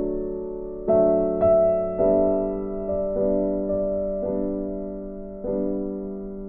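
Slow, soft background piano music, with a note or chord struck about once a second and each fading away.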